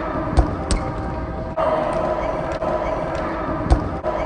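Rubber dodgeballs thudding in a gym, two sharp hits about half a second in and another near the end, over a steady background din.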